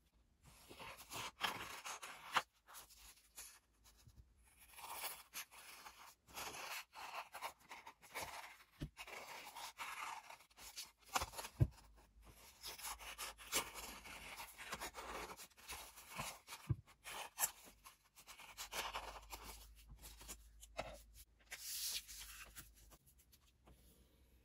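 Scissors snipping through green colored drawing paper along a drawn tree outline, with paper rustling as the sheet is turned and handled; it dies down to softer handling near the end.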